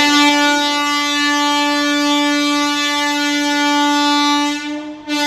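Train horn sounding one long steady blast that starts abruptly, falters briefly near the end and carries on.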